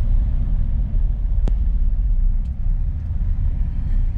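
Low, steady rumble of a Mitsubishi Pajero on the road, with one sharp click about a second and a half in and a fainter one a second later.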